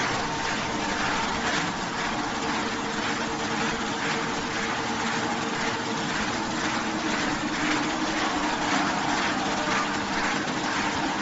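Fried-snack production line machinery running steadily: motors and a vibrating conveyor shaking the fried snack pieces make a constant mechanical hum over a noisy rush.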